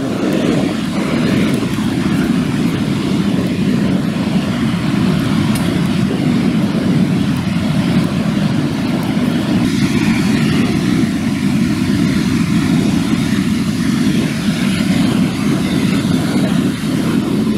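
Wind blowing across the camera microphone: a steady low rushing rumble.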